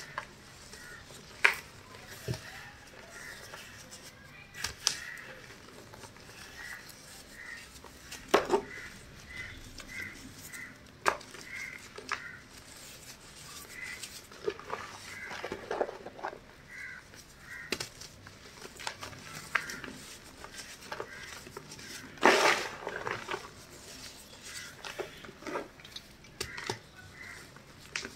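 Hands crushing and crumbling chalk in a bed of chalk powder: soft crunches and sharp snaps at irregular intervals, the loudest about eight and twenty-two seconds in.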